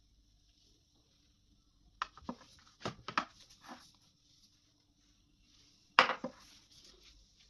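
Handling of kitchen utensils and dishes: a few light knocks and clacks about two to four seconds in, then a sharper knock about six seconds in.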